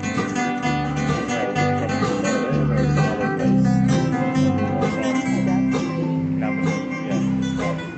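Live acoustic band playing an instrumental break in a country-style song: strummed acoustic guitar over a walking bass line, with fiddle.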